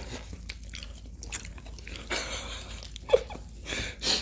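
Close-up eating sounds: biting into and chewing a fried chicken sandwich, with small clicks throughout and a sharp knock just after three seconds in.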